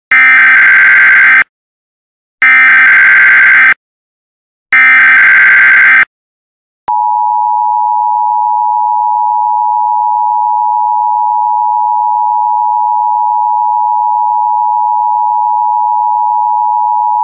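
Emergency Alert System tones: three short bursts of the buzzy digital SAME header, then from about seven seconds in the steady two-tone EAS attention signal. The sequence marks the start of a new alert, here a severe thunderstorm warning.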